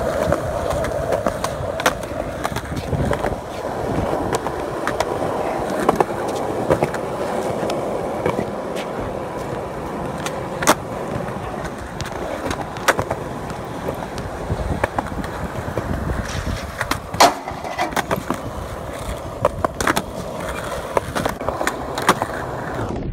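Skateboard wheels rolling on concrete with a steady rumble, broken by many sharp clacks of the board striking the ground during flatground tricks.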